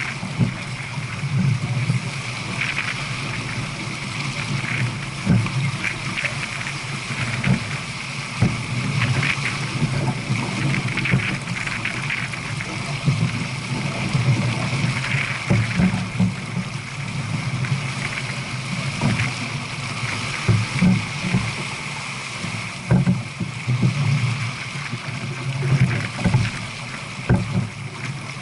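Water rushing and splashing along the hull of a J/24 sailboat running downwind at about 7 knots, with wind gusting on the microphone in irregular low rumbles.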